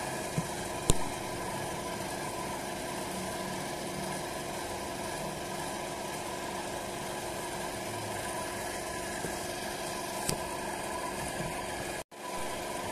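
Steady hum of a motor running at constant speed, with a sharp click about a second in and another near ten seconds.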